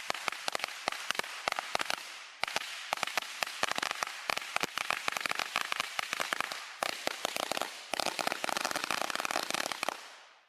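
A string of small firecrackers going off in a fast, irregular run of sharp pops and crackles, dying away near the end.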